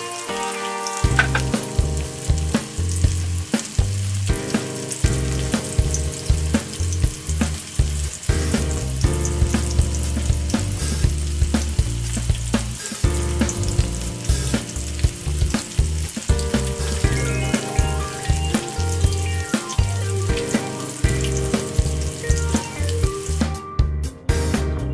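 Food frying in hot oil in a pan, a steady sizzle, under background music with a bass line and a steady beat.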